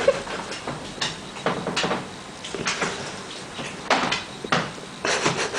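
A series of irregular knocks and clatters, some sharper than others, with a cluster of them around four and five seconds in.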